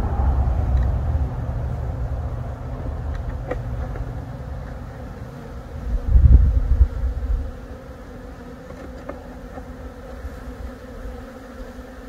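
Honeybees buzzing steadily around an opened hive. A low rumble runs under it, heavy at first, fading, then swelling to its loudest for about a second and a half some six seconds in.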